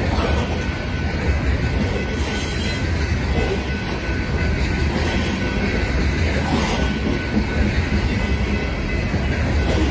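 Loaded BNSF coal train's open-top coal cars rolling past at speed: a steady, dense rumble of steel wheels on rail, with a faint high steady squeal from the wheels.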